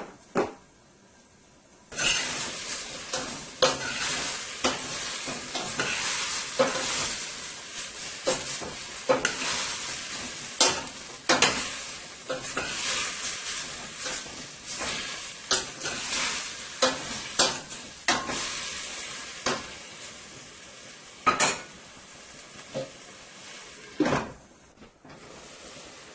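Marinated porterhouse steak frying in a hot pan: a sizzle that starts suddenly about two seconds in, with repeated clicks and scrapes of a utensil against the pan. The sizzle weakens in the last several seconds.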